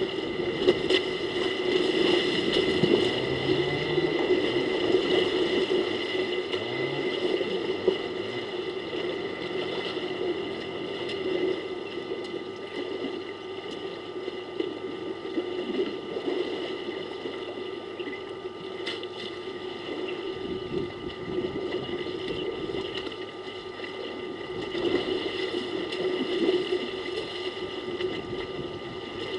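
Elephants bathing in a waterhole: water sloshing and splashing as they wade and roll, over a steady hum.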